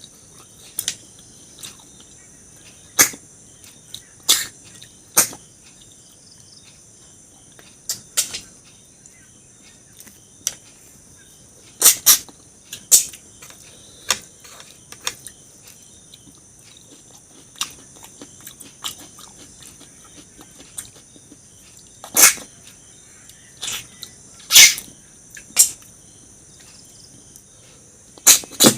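Close-miked eating sounds: sharp, irregular clicks and smacks from the mouth and food every second or two, some much louder than others, over a steady high hiss.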